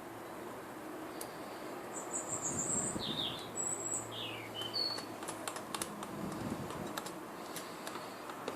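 Birds chirping in short high calls, followed by a run of sharp light clicks.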